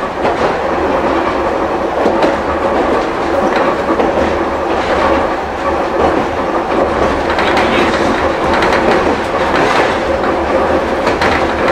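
Hankai Tramway Mo161-type tram running, heard from inside the car: a steady hum from its nose-suspended traction motors and gears, with the wheels clicking over rail joints.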